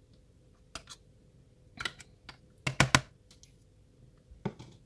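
A metal spoon tapping against plastic containers as spoonfuls of yogurt are scooped from a tub into a mini chopper bowl: a handful of light clicks, the loudest cluster about three seconds in.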